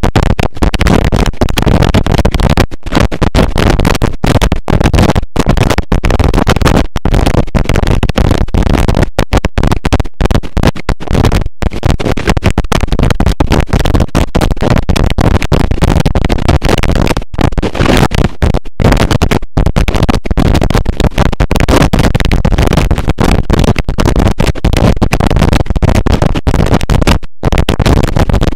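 Harsh noise music: a loud, dense wall of distorted noise across all pitches, chopped by frequent abrupt split-second dropouts at irregular intervals.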